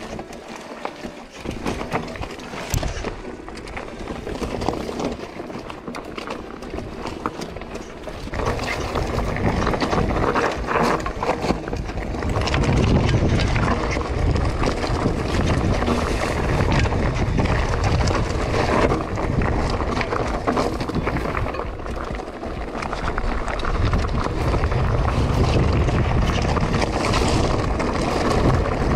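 Lapierre Zesty AM full-suspension mountain bike descending a rocky trail: tyres crunching over loose stones and the bike rattling, with wind rumbling on the microphone that grows loud from about eight seconds in.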